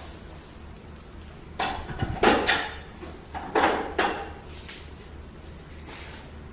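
Metal clanks and clatter in two clusters, about a second and a half and three and a half seconds in, as metal parts of a hydraulic pipe butt-fusion welding machine are handled, with a faint steady hum beneath.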